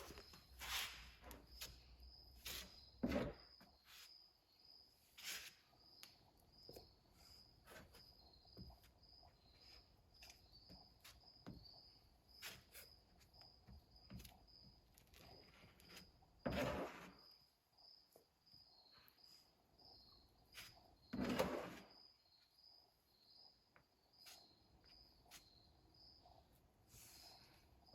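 Faint, quiet background with an insect chirping steadily at a high pitch, about one and a half chirps a second. There are scattered small clicks and two short, louder noises about two-thirds of the way through.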